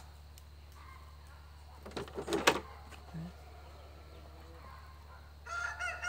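A rooster crows near the end, one long call that starts level and bends down in pitch and runs on past the end. About two seconds in there is a short cluster of clicks and a sharp knock.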